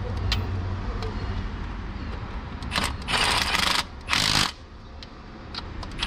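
Cordless driver spinning in the mounting bolts of a glow plug controller bracket, in three short bursts in the second half, over a steady low hum.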